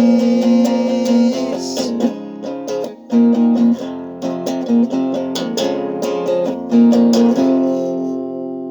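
Instrumental ending of a band's song: guitar chords strummed in a steady rhythm, with a brief break about three seconds in, closing on a final chord that is left to ring and fade out.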